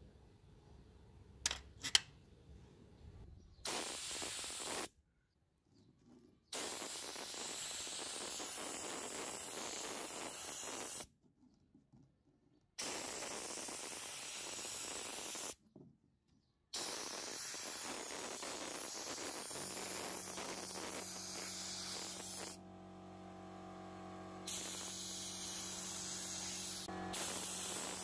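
Paint being sprayed onto a model car body in a series of hissing bursts, each lasting one to six seconds, with short pauses between them. Two sharp clicks come just before the first burst, and a steady low hum comes in about two-thirds of the way through.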